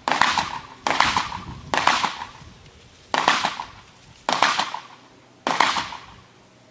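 Gunshots from another shooter on the range: six single shots at uneven intervals of about a second, each with a short echoing tail.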